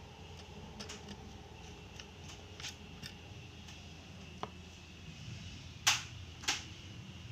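Scattered light clicks over a steady low hum, with two sharper, louder clicks about half a second apart around six seconds in.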